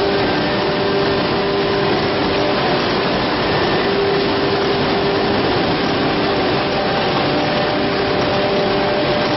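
Five-sided CNC drilling machine running: a steady rushing machine noise with a steady hum that drops out and comes back a few times.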